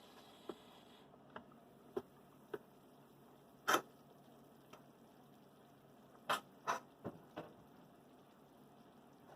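A handful of faint, separate clicks and taps, with a few louder short knocks about four seconds in and twice more a little after six seconds.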